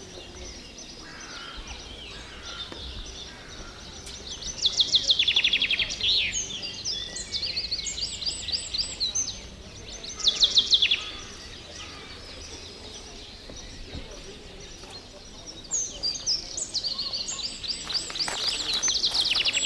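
Songbirds singing in trees: repeated quick, high trills and chirps, loudest about five and ten seconds in and again near the end, over a faint low background hum. A few sharp clicks come near the end.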